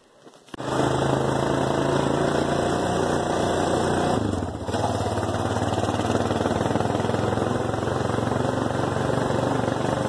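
Four-wheeler (ATV) engine running steadily as the quad rides through snow. Its note dips briefly about four seconds in.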